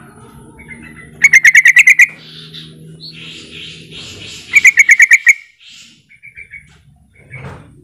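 Yellow-vented bulbul calling: two loud runs of rapid chattering notes, about nine notes each in under a second and about three seconds apart, with fainter short calls between them.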